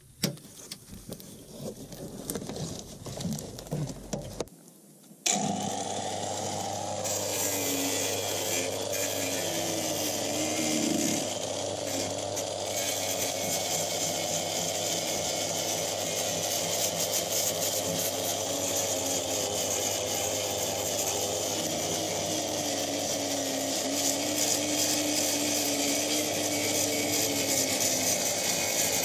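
Angle grinder switched on about five seconds in and held against the van's steel body panel by the front wheel arch, running steadily with its pitch dipping and wavering as it is pressed into the metal.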